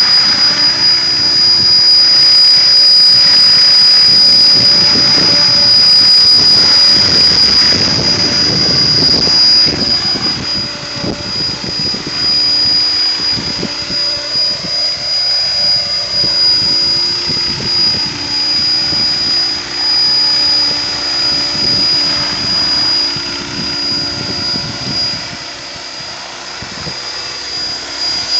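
A Mikado Logo 600 electric radio-controlled helicopter in flight, with a steady high whine. It grows quieter and more uneven from about a third of the way in as the helicopter flies farther off.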